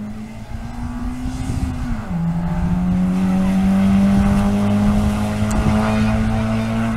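Historic rally car's engine at high revs approaching at speed: the engine note holds steady, drops in pitch about two seconds in, then holds at the lower pitch while growing louder.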